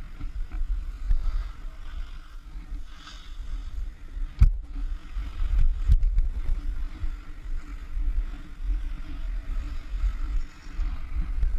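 Skis hissing and scraping over chopped-up packed snow during a downhill run, under heavy wind buffeting on the microphone. A sharp knock about four and a half seconds in, and a lighter one a moment later.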